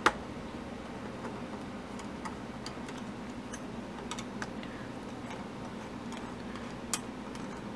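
Light metallic clicks and taps of a screwdriver working the screws of a Honda CB650 carburetor's diaphragm top cover, with a sharp click at the very start and another near the end, over a steady low hum.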